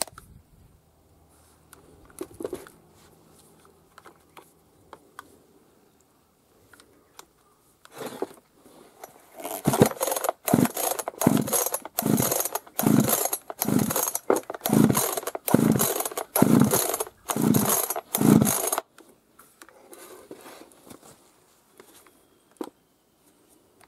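Hitachi two-stroke chainsaw being pull-started, about a dozen quick pulls on the recoil starter beginning about ten seconds in, the engine not catching. The repairer takes this for fuel not reaching the engine, with the carburettor staying dry. Before the pulls there are only light handling noises.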